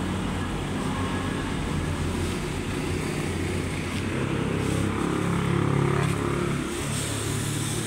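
A motor vehicle engine running nearby, getting louder and a little higher for a second or two about five seconds in.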